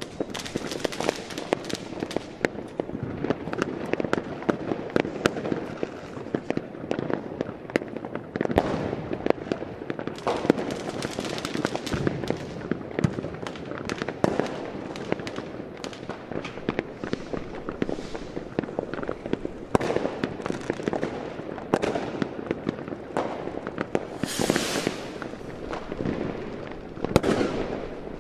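Crackling fire: a continuous mass of irregular pops and crackles over a steady low rush, with a brief hissing flare near the end.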